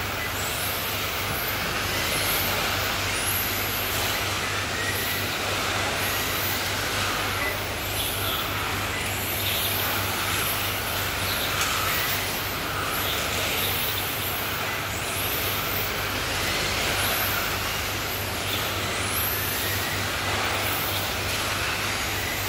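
Radio-controlled 1/10-scale touring cars racing: their electric motors whine high, rising again and again as cars accelerate out of the corners, over steady tyre and drivetrain noise and a low hum.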